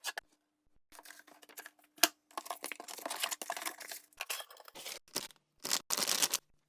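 Camera box packaging being opened: irregular tearing and crinkling of paper and plastic wrap, with a sharp click about two seconds in.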